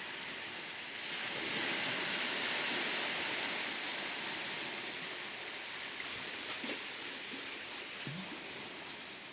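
Sea waves washing, a hiss of water that swells about a second in and then slowly fades away.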